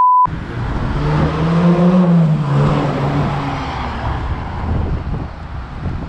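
A steady test-card beep cuts off a quarter second in. Then comes the Yamaha XTZ 250's single-cylinder engine under way, its pitch rising for about two seconds and falling back, with wind rushing on the helmet camera's microphone.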